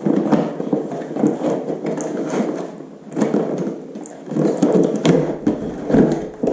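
Handling noise while unpacking a metal detector: rustling, scraping and clicks from the parts and packaging being handled and tried together, with a few sharp clicks.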